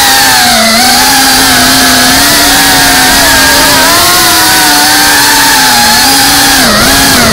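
FPV racing-drone motors and propellers whining loudly as the drone flies, the pitch rising and falling with the throttle and dipping sharply twice, about half a second in and near the end.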